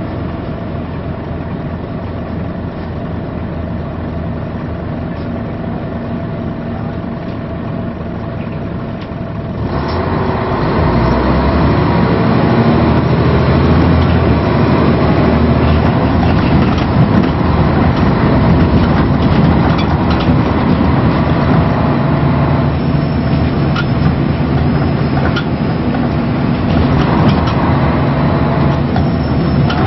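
Scania L113CRL bus's diesel engine ticking over steadily. About ten seconds in it gets suddenly louder as the bus pulls away and accelerates, and the note changes a little over twenty seconds in.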